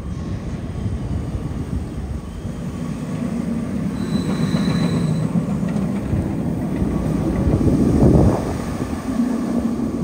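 Mandrill Mayhem steel roller coaster train running along its track on a test cycle: a steady low rumble that builds to its loudest about eight seconds in as the train passes close. A brief high whine comes about four seconds in.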